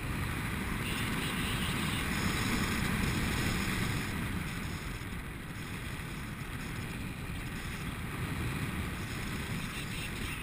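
Airflow rushing over the camera microphone during paraglider flight, a steady wind noise that swells a couple of seconds in and then eases.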